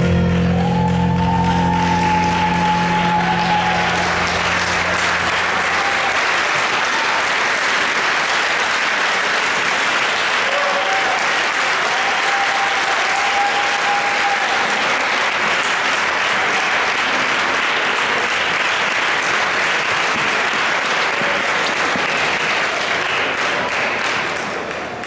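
Audience applauding steadily at the close of a ballroom showdance, with a few voices calling out. The last held notes of the dance music fade out during the first few seconds, and the applause dies down near the end.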